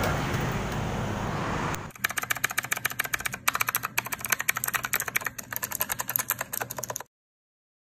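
Motorcycle riding noise, engine and wind, for about the first two seconds, then a typing sound effect: rapid typewriter-like key clicks. The clicks run for about five seconds and cut off abruptly near the end.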